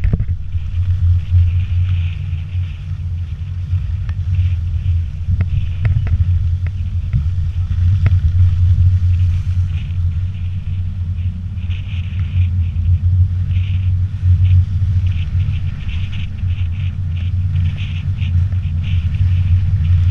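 Steady low rumble of a vehicle moving along a wet road, picked up by a mounted action camera, with a light crackling hiss that comes and goes, more often in the second half.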